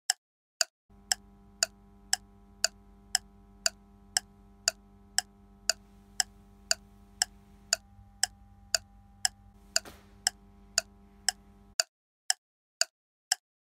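Steady clock-like ticking, about two ticks a second, with a low steady hum of several held tones beneath it from about a second in until near the end.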